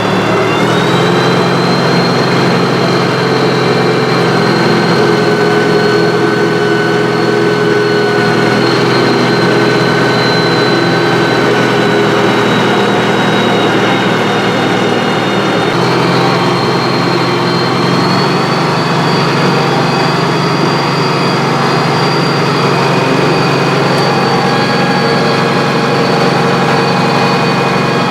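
Case 780 backhoe's diesel engine running steadily at a constant speed. The engine note shifts slightly about two-thirds of the way in, then picks up a little.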